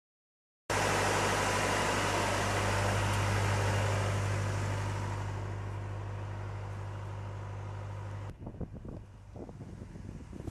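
A motor running steadily with a constant low hum under a broad rushing noise, the hiss fading over several seconds. About eight seconds in it cuts off abruptly to gusty wind buffeting the microphone.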